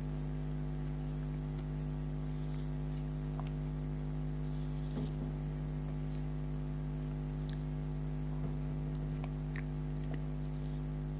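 A steady low hum, with a few faint soft clicks and squishes of someone chewing soft, syrupy Indian sweets.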